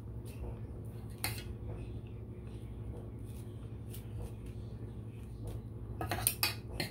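A table knife spreading melted chocolate onto cookies on a wire cooling rack, with a single click about a second in and a quick run of metal clinks near the end as the knife goes back to the chocolate pan, over a steady low hum.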